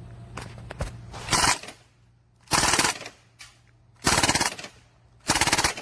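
Crosman DPMS SBR CO2-powered BB air rifle firing on full auto: four short bursts of rapid shots about a second apart, after two faint clicks.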